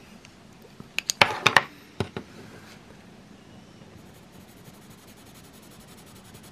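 Coloured pencil scratching lightly on paper while colouring, with a quick cluster of sharp clicks about a second in.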